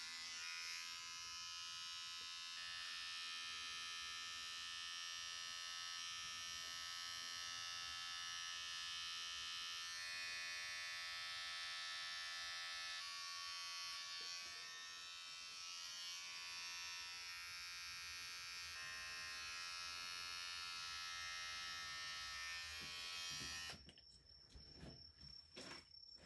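Cordless electric hair clippers buzzing steadily as they cut a boy's short hair, the pitch shifting slightly now and then. They switch off a couple of seconds before the end.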